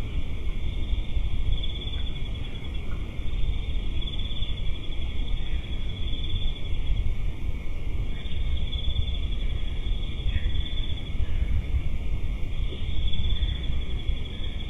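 Night insects trilling steadily in repeated phrases of about two seconds, over a constant low rumble of microphone and background noise.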